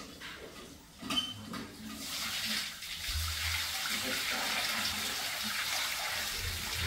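Water poured from a brass pot over a black stone statue, splashing steadily onto the statue and its stone plinth. The pouring builds from about two seconds in, after a single knock about a second in.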